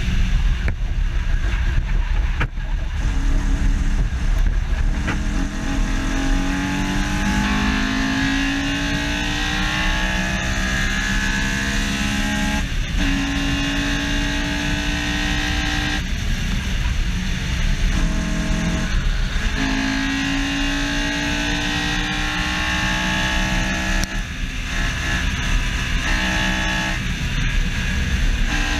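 Honda S2000's F20C four-cylinder engine pulling hard on track, its pitch climbing steadily through the revs and broken several times by brief drops, as at gear changes or lifts. Wind and road noise from the bumper-mounted microphone run underneath.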